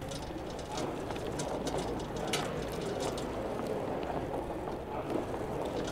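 Street ambience: a steady low rumble with scattered light clicks and taps, and birds calling.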